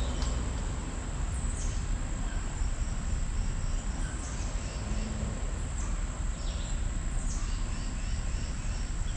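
Outdoor ambience of a steady high insect drone, with short falling bird chirps repeating every second or so over a low, steady rumble.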